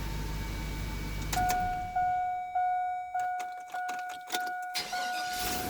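2002 Chevrolet Silverado 2500HD: the engine's steady low running stops about a second and a half in. The truck's warning chime then dings repeatedly, about every 0.6 s, with sharp clicks. Near the end there is a short burst of noise, and the engine is running again.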